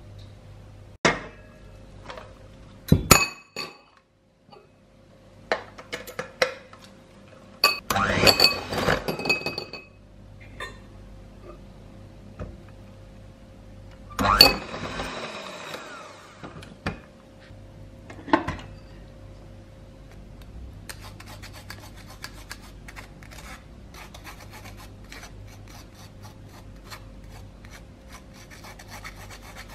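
Knocks and clinks of a ceramic bowl and utensils, then two short bursts of a hand mixer's metal beaters rattling and scraping against a ceramic bowl holding a block of firm butter. After that comes a long stretch of faint, fine scratching.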